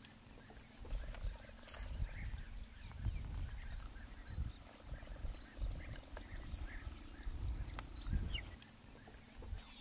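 Cheetahs purring while resting together: a low rumble that comes in uneven pulses, with faint bird chirps in the background.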